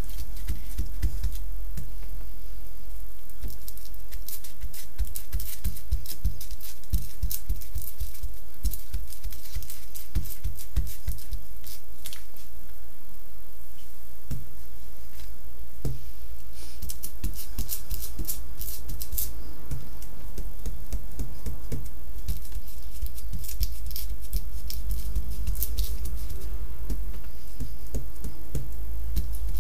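Hands working on a foil-faced Reflectix car sunshade, with irregular taps, clicks and crinkles as stencils are pressed down and an ink pad is dabbed through them onto the surface. A steady low hum runs underneath.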